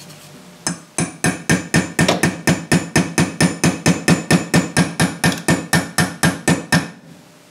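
Hammer tapping a 1/16-inch roll pin punch, driving the gas tube roll pin of an AR-15 upper receiver flush. The strikes are quick and even, about four a second, each with a faint metallic ring. They start just under a second in and stop about a second before the end.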